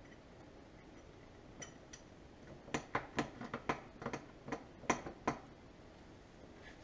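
Small metal clicks and taps as a hand tool works parts into a rebuilt starter motor's end housing: a couple of faint clicks, then a quick run of about a dozen sharper clicks in the middle.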